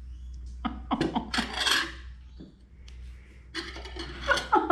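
Scraping and clinking of a dinner plate and cutlery being handled, in two short flurries, over a steady low hum.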